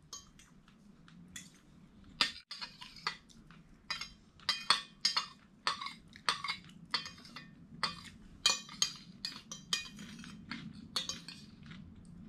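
Metal forks and spoons clinking against ceramic plates as two people eat. The clicks are short and irregular, a couple a second, starting about a second in.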